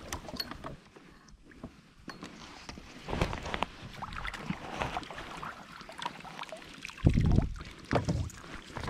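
Water splashing and sloshing as a hooked bass thrashes beside a kayak and is scooped into a landing net, with scattered clicks and knocks. A loud low thump comes about seven seconds in, and a smaller one about a second later.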